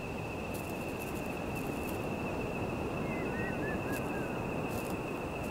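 Outdoor nature ambience: a steady high-pitched insect trill runs throughout over a low hiss, and a small bird gives a few short chirps about three seconds in.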